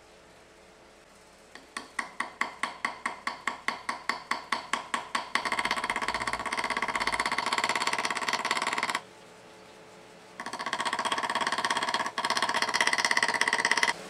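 Small hammer peening the brass pins of a knife handle with light taps on metal: separate taps about five a second at first, then a fast continuous tapping that stops for about a second and a half and starts again.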